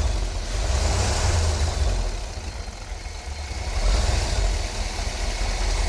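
Car engine idling unevenly with a misfire, which the owner puts down to a faulty ignition coil.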